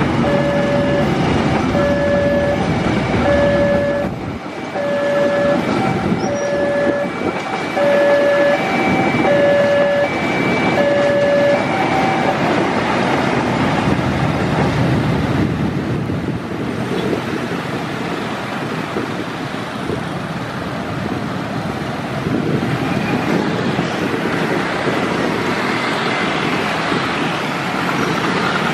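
Level-crossing warning alarm sounding a short electronic tone about once every 1.2 seconds over the rumble of a passing passenger train; the alarm stops about twelve seconds in. After that, motorcycles and other traffic drive off across the tracks.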